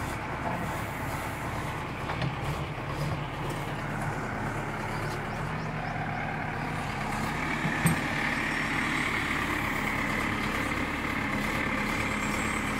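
JCB 3DX backhoe loader's diesel engine running under load as the backhoe arm and bucket are worked, on trial after a repair. A higher whine comes in about halfway through, and there is a single sharp clank near the eight-second mark.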